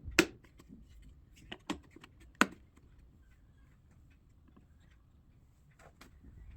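A few sharp knocks and clicks of tools and parts being handled while fitting a lathe carriage. The loudest come just after the start, at about one and a half seconds and at about two and a half seconds. Fainter clicks follow near the end over a quiet room background.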